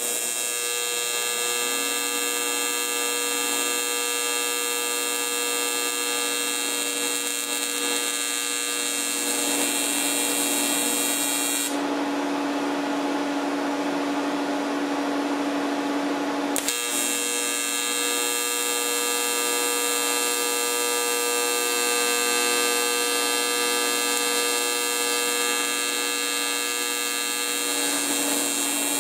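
TIG welding arc from a Miller Dynasty 300, held on a practice plate for the whole stretch: a steady hum with a clear pitch. For about five seconds in the middle it turns rougher and noisier.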